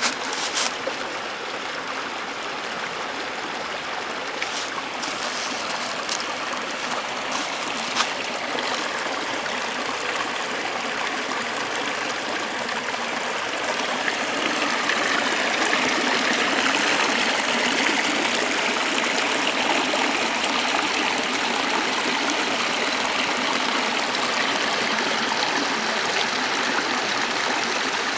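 Small waterfall splashing steadily, growing a little louder about halfway through, with a few faint clicks in the first part.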